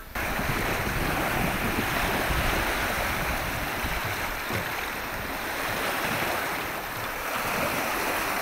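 Choppy lake waves breaking and washing onto the shore in a steady rush, with wind buffeting the microphone.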